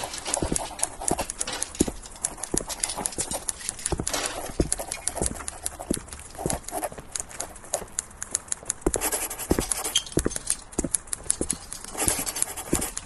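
A run of irregular sharp clacks and knocks, several a second, over a faint steady noise that swells for short stretches.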